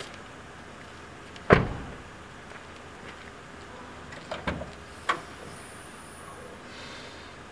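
A single heavy thump about a second and a half in, then a quick cluster of sharp clicks and a clunk between about four and five seconds as a car's rear hatch is unlatched and lifted.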